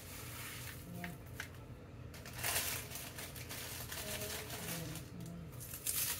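Ritz crackers being crushed and crumbled by hand: short bursts of crunching and crinkling, the two loudest about two and a half seconds in and near the end.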